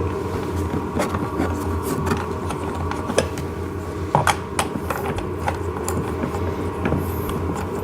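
Scattered sharp clicks and clinks of small hardware and a tool being handled while a toy ride-on tractor's front wheel is fastened with a washer and nut, a few louder knocks in the middle, over a steady low hum.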